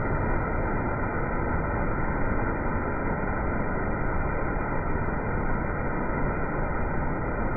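Steady, muffled rushing din of an indoor water-park pool hall, with running and splashing water and echoing background noise blended together.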